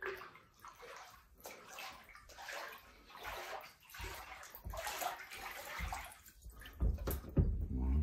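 Floodwater sloshing and splashing in irregular bursts as someone wades through a flooded house, with a few heavier low thumps about seven seconds in.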